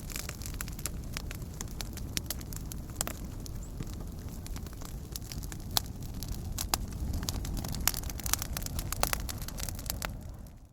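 Fireplace fire crackling, with many irregular sharp pops over a steady low rumble. It fades out quickly at the very end.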